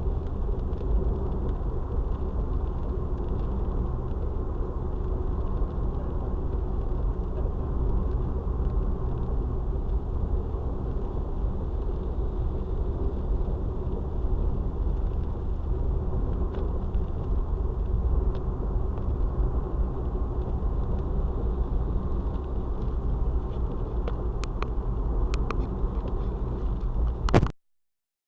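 Steady low road and engine rumble of a moving car, heard from inside the cabin through a dashcam's microphone, with a few faint clicks near the end before the sound cuts off abruptly.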